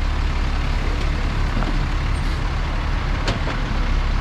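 Diesel truck engine running steadily with a low rumble, and a single sharp click about three seconds in.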